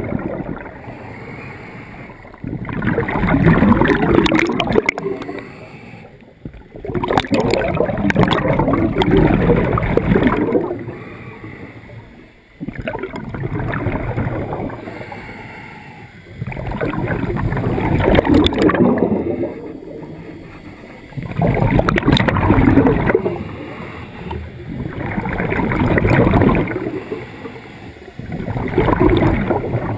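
Scuba diver's regulator exhaust bubbles gurgling past the camera, in bursts of two to three seconds that come about every four seconds with the diver's breathing. The bubbles are heard underwater through a GoPro's waterproof housing.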